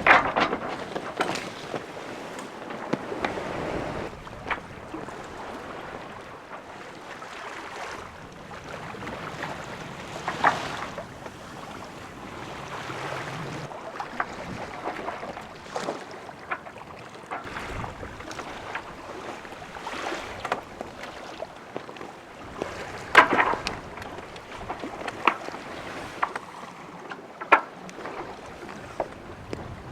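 Water sloshing and washing along a sailboat's hull in light wind, with scattered sharp knocks from the boat; the loudest come right at the start, at about ten seconds and about three-quarters of the way through.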